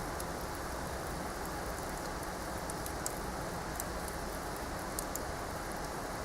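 Wood campfire crackling: scattered sharp pops and ticks, a few louder ones about a second apart, over a steady rushing hiss.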